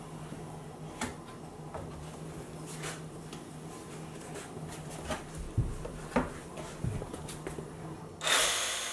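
Cedar shingles being handled and set on a plywood roof: scattered light wooden knocks and taps over a steady low hum. Near the end comes a sudden loud burst from a handheld power tool.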